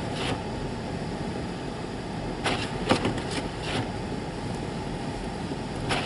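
Steady cabin noise of a car driving on a snow-covered road, engine and tyres, with a few short knocks, four of them close together about halfway through.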